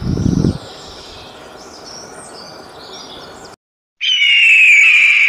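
A short low thump, then faint high chirping of small birds; after a brief break, a loud, long raptor's scream that starts high and slides downward near the end.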